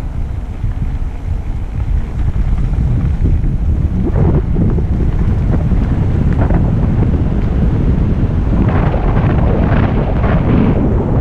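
Wind buffeting a bike-mounted GoPro's microphone as a mountain bike speeds down a rough dirt track, with the tyres rumbling. The bike knocks and rattles over bumps, more often near the end.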